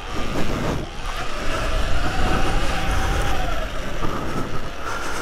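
Electric off-road motorbike being ridden over a dirt track: a thin motor whine that rises and falls a little, over a heavy, uneven low rumble.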